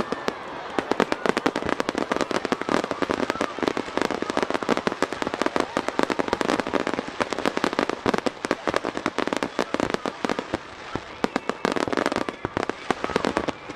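Fireworks barrage: a rapid, unbroken stream of sharp cracks and pops from many shells bursting, several every second.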